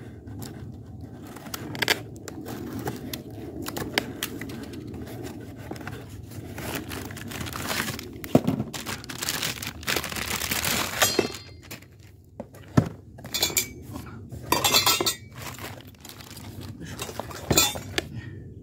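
Stainless steel motorcycle exhaust pipes and silencer being unpacked: plastic wrapping rustles in a few longer bursts, and the metal parts clink sharply against each other and the cardboard box several times.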